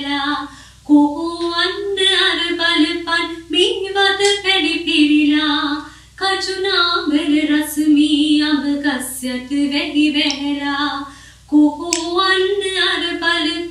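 A woman singing Sinhala folk verses (jana kavi) unaccompanied, in long held melodic phrases with brief pauses for breath about a second in, midway and near the end.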